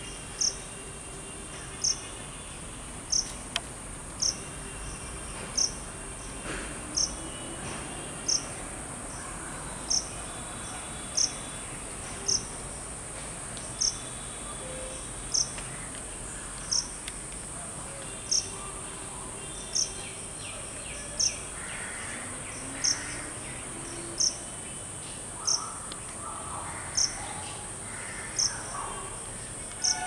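Steady high-pitched insect drone, with a short, high chirp repeating evenly about every one and a half seconds. Faint, varied bird calls sound in the background, more often in the second half.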